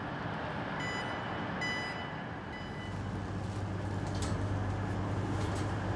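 Two short electronic door beeps as a passenger train's doors are released for boarding, over a steady rumble of train and platform noise; a low steady hum sets in about halfway through.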